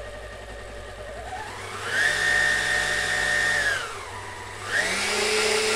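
Kenwood KM200 stand mixer's brushed motor speeding up and slowing down as its speed knob is turned. It starts at a low hum, rises to a steady high whine about two seconds in, drops back just before four seconds, then runs up again about a second later and holds. The electronic speed control is responding again after its blown capacitors were replaced.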